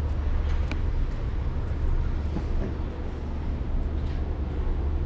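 A steady low rumble under a haze of outdoor noise, with a few faint clicks.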